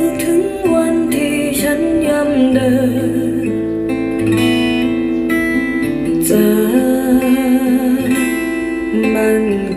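Guitar-led instrumental intro of a Thai pop song, played loud through a two-way 10-inch line array speaker cabinet as a sound demonstration.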